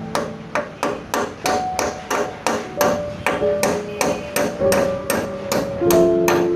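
Hammer blows, evenly spaced at about four a second, over background music with sustained tones.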